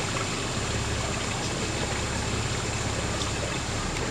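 A houseboat's engine running with a steady low hum, under a steady wash of water noise as the boat moves along the canal.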